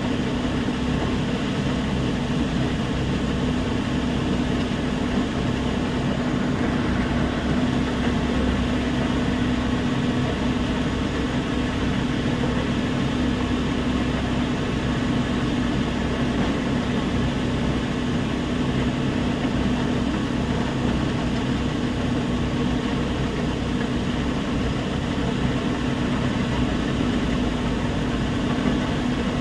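Heavy machinery running steadily: a constant low hum with a steady droning tone and no change in level.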